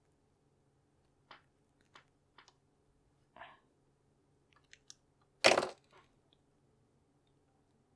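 Small clicks and taps from handling the iPod Nano and its replacement screen while test-fitting it, with a short scrape and one louder brief crunch about halfway through.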